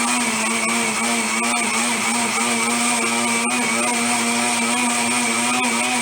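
Electric blender running steadily, a constant motor hum with a high whine, liquefying aloe vera gel and water into a foamy liquid.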